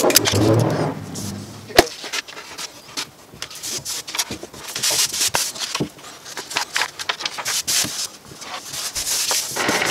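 Paper sheets rustling and sliding as they are handled and smoothed on a wooden board, with light taps and one sharp knock about two seconds in. Just before the end a scroll saw starts running steadily.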